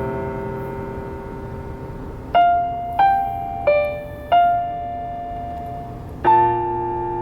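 Piano played slowly: a held chord fades, then four single melody notes are struck about every half second, and a new chord is struck about six seconds in and left ringing.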